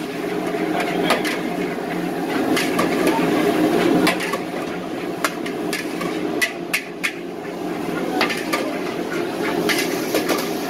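A metal ladle scraping and knocking against a large wok while eggs are stir-fried, with irregular sharp clanks every second or so over a steady sizzle of frying.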